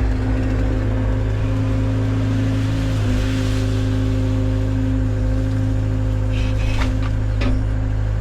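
Engine of a compact cleanup machine running at a steady speed. A few short knocks are heard near the end.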